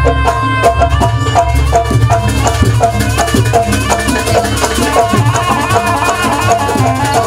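Traditional jaranan accompaniment music: a fast, stepping melody over dense drumming and rattling percussion, with a heavy low bass underneath.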